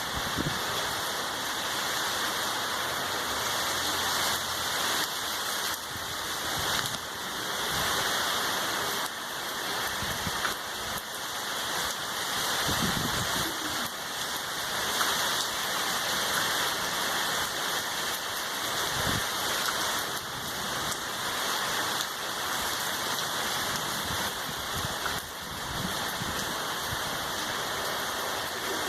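Heavy rain falling steadily, an even, dense hiss of downpour with a few soft low thuds of drops striking a surface.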